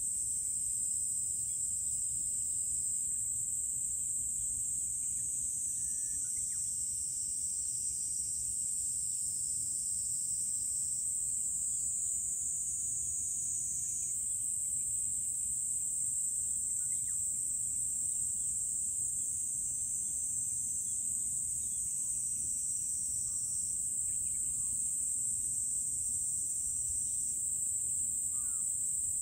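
Cicadas singing in the trees: a steady, loud, high buzz that shifts slightly as individual insects start and stop. A few brief bird chirps come through, over a faint low rumble.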